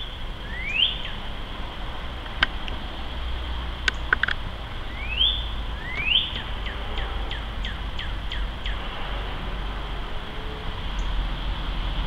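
Northern cardinal singing: slurred whistles rising steeply in pitch, three of them, followed by a quick run of short down-slurred notes about three a second. A few sharp clicks fall between the whistles, over a steady low rumble.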